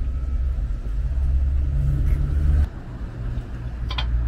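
Low, steady rumble of an idling vehicle engine, which drops off sharply about two-thirds of the way through; a short metallic clink near the end.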